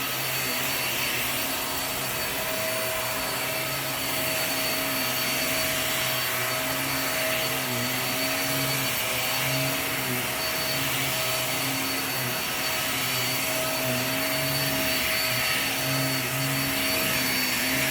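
Hoover React QuickLift upright vacuum running on carpet: a steady motor hum with a rush of airflow, its lower tone wavering and dipping now and then as it is pushed back and forth.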